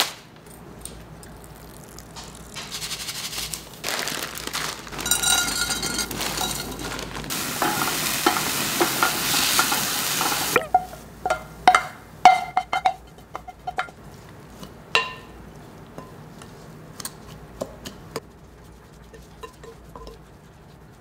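Cauliflower rice sizzling as it is stir-fried in a frying pan with a wooden spatula; the hiss builds and cuts off suddenly about halfway through. Then scattered clicks and knocks of the wooden spatula against the pan and the mixing bowl.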